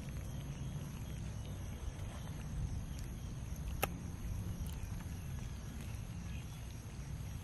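A crowd of cats and kittens eating rice and fish together: soft scattered smacking and chewing clicks over a low steady rumble, with one sharper click a little under four seconds in.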